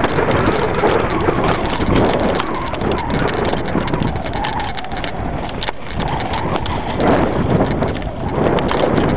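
Enduro motorcycle ridden over a rough trail: the engine runs under a dense, constant rattle and knocking of the bike over bumps.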